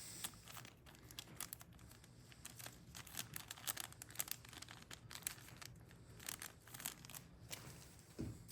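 Faint crinkling of small plastic parts bags being handled and opened, with scattered light clicks.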